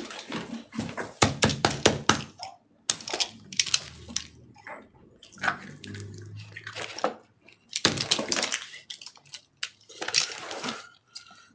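Cavalier King Charles Spaniel choking on a treat: harsh, wet gasping and retching noises in irregular bursts, mixed from about the middle on with thumps as her back is smacked to dislodge the blockage.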